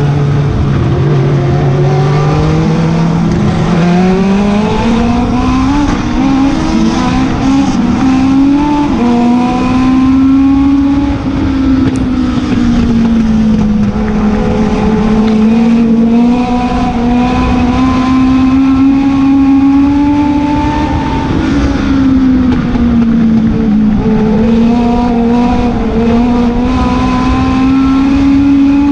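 Legend car's Yamaha four-cylinder motorcycle engine heard from inside the cockpit, running steadily at moderate revs. Its pitch climbs about four seconds in, then sags and picks up again a few times as the car goes round the track.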